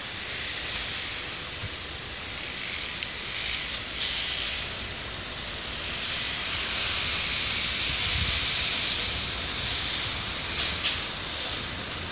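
Road traffic: a steady hiss of tyres on a wet road with a low engine rumble, swelling a little a few seconds in as a city bus moves alongside.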